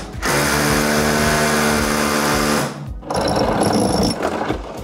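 Cordless SDS rotary hammer drill boring through a brick wall, running steadily for about two and a half seconds and then stopping. A quieter, muffled noise with faint high tones follows.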